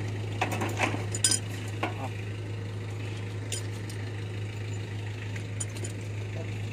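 A hand tool clinking and tapping against the metal of an electrical control-panel enclosure: a cluster of sharp clicks in the first two seconds, then a few scattered ones later, over a steady low hum.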